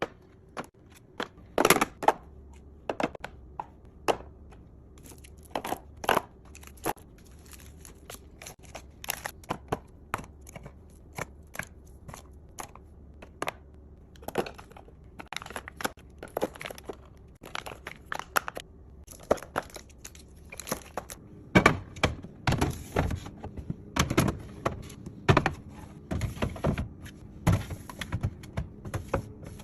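Snack packaging being handled and stacked into a fridge: crinkling wrappers with many separate clicks, knocks and thunks as items are set down, busier and louder in the last several seconds.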